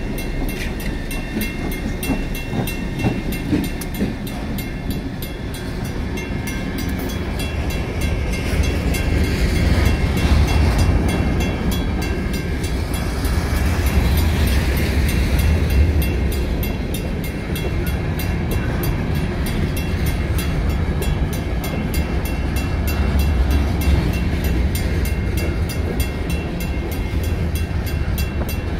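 A Dakota and Iowa Railroad freight train rolls through a grade crossing: the last locomotive passes, then mostly empty rock hopper cars follow with a continuous low rumble of wheels on the rails. Over it the crossing's WCH mechanical bell rings steadily.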